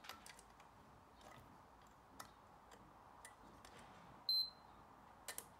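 Handheld digital multimeter giving one short, high beep about four seconds in during a diode test, with a few faint clicks of the test probe tips against the diode legs.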